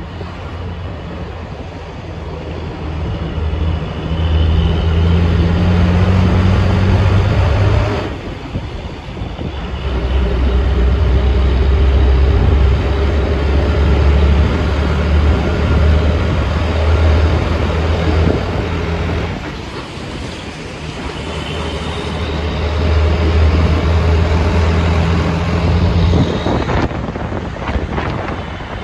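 Cabin noise of a moving bus: a deep engine drone under steady road and tyre noise. The drone swells and then eases off briefly three times: about eight seconds in, around twenty seconds in, and near the end.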